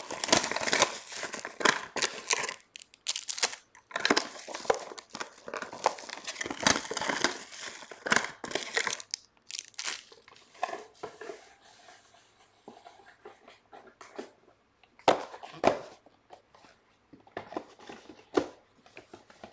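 Plastic wrapping of trading card packs being torn open and crinkled, busy and dense for the first half, then sparser, quieter handling with a few sharp rustles.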